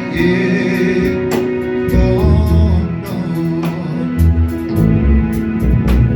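Church worship music: voices singing over guitar, deep bass notes and a steady drum beat.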